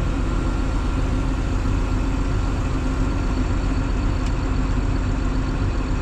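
Steady engine and machinery drone heard from inside a tractor cab, with a Claas forage harvester chopping corn close by.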